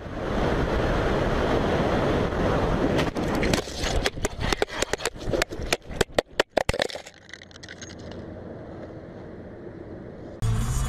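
Wind and road noise of a motorcycle at speed, then, a few seconds in, a rapid run of hard knocks and scrapes as the crash sends the camera tumbling across the dirt, settling into a quieter hiss.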